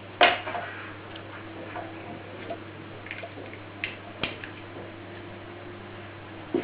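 Small plastic parts and wiring being handled while cables are connected to an alarm control unit: one sharp click just after the start, then a few light clicks and taps about four seconds in, over a steady low hum.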